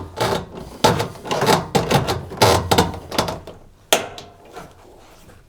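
Washing machine drain hose rubbing, scraping and knocking against the machine's back panel as it is fed back through its hole, in a run of irregular knocks. A single sharp click comes about four seconds in, as the grommet is pressed back into place.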